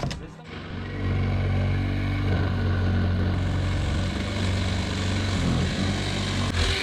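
A motor running steadily, a low drone that starts about a second in and stops near the end.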